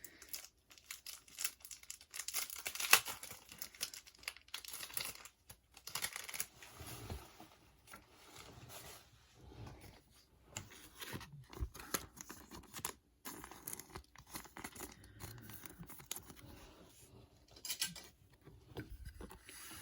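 Plastic wrap on a pack of card sleeves being torn open and crinkled, with rustling as cards and sleeves are handled; one sharp snap about three seconds in.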